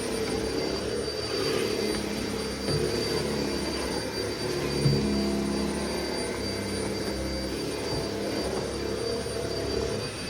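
Vacuum cleaner running steadily, its motor giving a constant high whine, with a single short bump near the middle.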